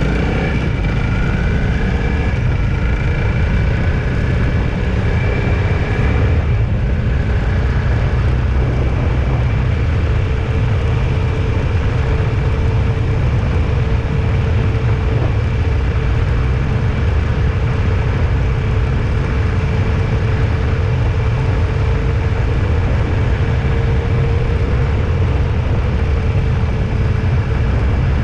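A road vehicle driving along at a steady pace, with a constant low rumble of engine, road and wind noise and a faint steady hum.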